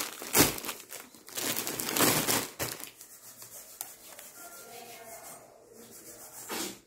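Clear plastic saree packaging crinkling and rustling as packed sarees are handled, in several rustles during the first half and quieter afterwards.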